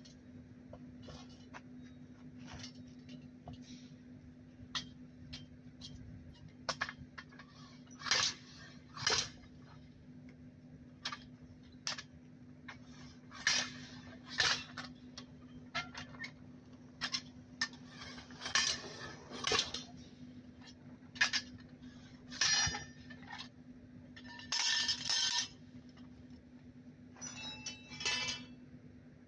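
A long steel tire bar striking and prying at a dump-truck tire's steel rim while the tire is worked off the rim: irregular metallic clanks and clinks, a few of them in quick clattering runs.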